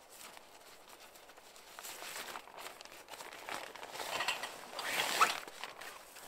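Fabric rustling and swishing as it is pulled out of a carry bag, in a run of swishes that grows louder in the second half.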